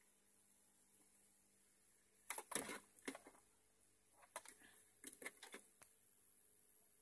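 Small plastic clicks and clatters as power-supply cable connectors are handled and pushed into the motherboard's ATX power sockets, in two short clusters: one about two and a half seconds in and another from about four and a half to six seconds.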